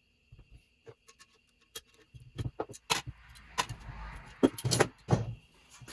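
Metal clicks, taps and clinks as a valve spring compressor and valve springs and retainers are handled on a cylinder head. The sounds come as a string of sharp knocks in the second half, the loudest two close together near the end.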